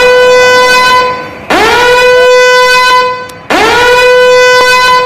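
Vehicle air horn sounding long, loud blasts about two seconds apart, one already going as the sound begins. Each blast sweeps quickly up in pitch as it starts, then holds one steady tone before cutting off.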